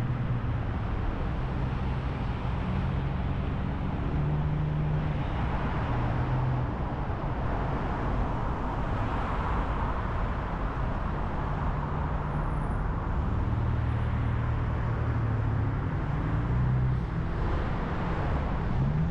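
Steady road and tyre noise from a car driving at highway speed, with a low engine hum that comes and goes. The noise swells twice, as vehicles pass close by.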